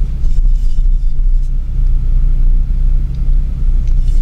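Steady low mechanical rumble with an even pitched hum underneath, with a few faint light clicks in the first second or so.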